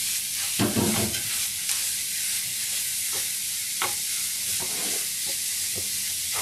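Ground beef sizzling as it browns in a skillet. A spatula scrapes and knocks against the pan now and then as the meat is broken up.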